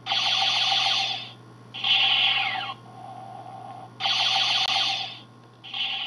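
Electronic sci-fi ship sound effects, typical of a model's light and sound kit: four bursts about a second long, two of them ending in a falling sweep, over a steady low hum.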